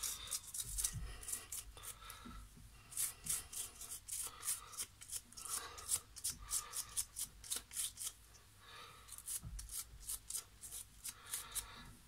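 Toothbrush bristles scrubbing the alcohol-wetted cables and parts of a disassembled coffee machine, in quick brushing strokes. The strokes come in several bouts, with short pauses between them.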